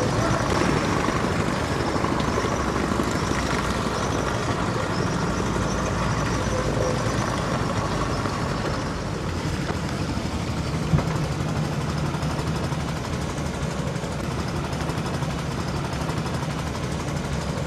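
A small river ferry boat's engine running steadily with a low hum.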